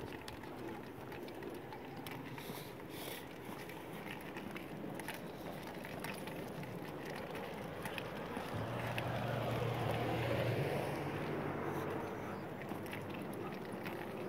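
An SUV driving past, its engine hum and tyre noise swelling to a peak a little past the middle and then fading away.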